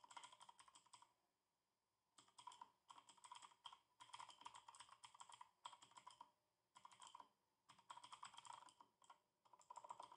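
Quiet typing on a computer keyboard: quick runs of keystrokes with short breaks between them, and one pause of about a second near the start.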